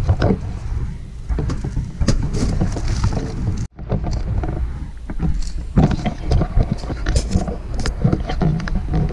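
Rumbling, rustling handling noise on a handheld camera's microphone as it is carried and moved about, with many small knocks and bumps. It breaks off for an instant about a third of the way in.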